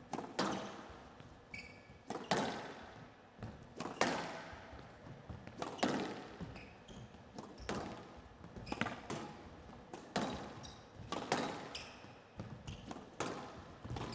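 Squash ball being struck back and forth in a rally: sharp racket hits and front-wall impacts about every second, often in quick pairs, each echoing in the glass-walled court, with a few short squeaks between them.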